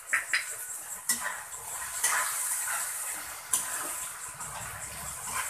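Metal spatula scraping and knocking against a kadai as onions and capsicum in sauce are stirred, with a few sharp clinks over a steady frying sizzle.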